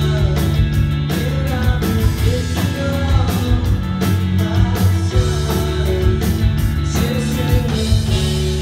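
Live rock band playing: distorted electric guitars, bass and a drum kit with a sung vocal line over them. Loud and steady, with drum hits throughout.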